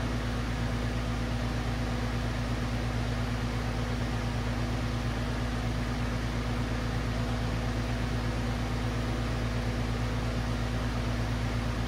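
Oxy-acetylene torch flame burning with a steady hiss while heating a copper pipe for brazing, over a steady low electrical hum.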